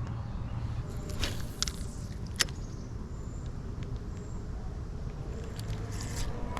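Steady low outdoor rumble with a few sharp clicks and ticks, the loudest about two and a half seconds in.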